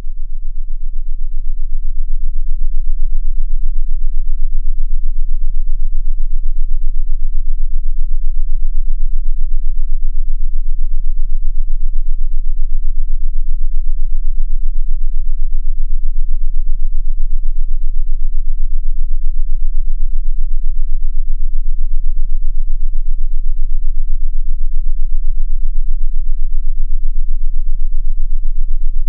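Synthesized sound-therapy frequency tone: a loud, deep, steady low hum with faint overtones above it. It swells up over about the first two seconds, then holds at a constant level.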